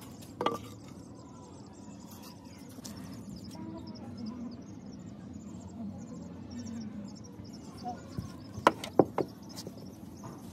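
Insects chirping in a fast, even rhythm, with a sharp knock about half a second in and a quick run of three louder knocks near the end as objects are set down on the concrete floor.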